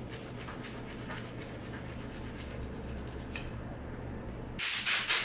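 Toothbrush bristles scrubbing an AR-15 bolt in quick, light, scratchy strokes, followed near the end by a much louder rushing, rasping noise.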